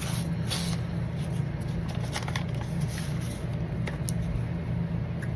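Packaging being handled and opened, with a few short crinkles and crackles over a steady low hum.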